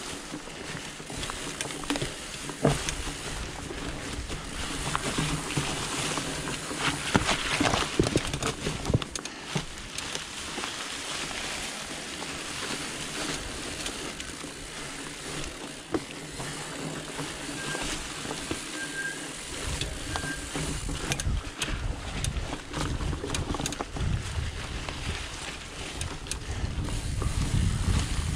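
Trek Farley fat bike being ridden over a dirt trail: the fat tires roll with a steady rough noise, and the bike and the mounted camera pick up frequent short knocks and rattles over bumps. Wind rumbles on the microphone and grows stronger over the last several seconds.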